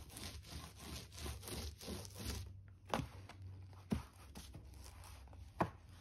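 Small paint roller spreading PVA glue over a primed wooden panel, a quick run of short scraping strokes for the first couple of seconds. Then a few sharp knocks as the roller is worked in a plastic paint tray.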